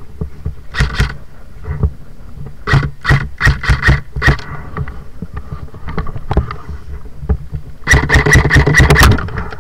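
Airsoft guns firing: a couple of single shots, then a string of about seven quick semi-automatic shots, and about a second from the end a rapid full-auto burst lasting about a second.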